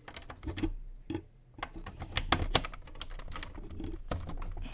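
A quick run of sharp plastic clicks and taps as mains plugs and cords are handled and pushed into a socket, over a low steady hum.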